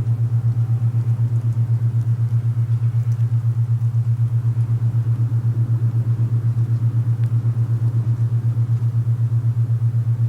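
Low, steady binaural-beat tone for alpha-wave meditation, throbbing rapidly and evenly several times a second, over a faint rush of wind.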